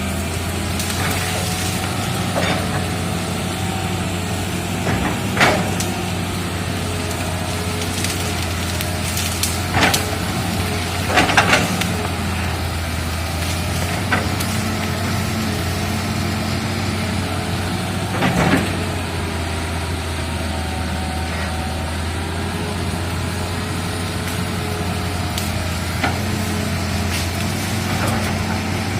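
Excavator's diesel engine running steadily under load, with scattered sharp knocks and cracks from the machine at work, the loudest a quick pair about eleven seconds in and another near eighteen seconds.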